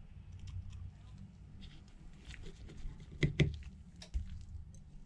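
Small clicks and scrapes of a precision tri-point screwdriver working screws into the metal bracket inside an open iPhone, with two louder, sharper clicks a little past three seconds in. A low hum runs underneath.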